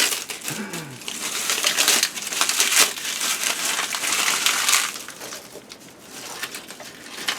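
Dry bark being crushed and broken up by hand, a dense crackling and crumpling for several seconds that eases off about five seconds in.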